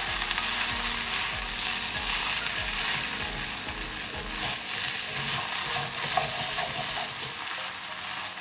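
Fried rice with goat meat, bok choy and egg sizzling in a hot wok while a silicone spatula stirs and scrapes it around the pan.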